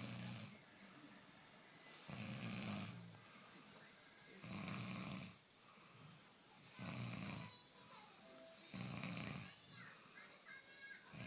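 Steady rhythmic snoring: about five drawn-out snores, one every two seconds or so.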